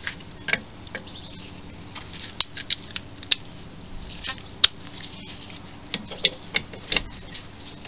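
Small metal hand tools clicking and clinking: a socket and hex key being fitted and worked on the lathe's bolts, with about a dozen light, irregular metallic ticks.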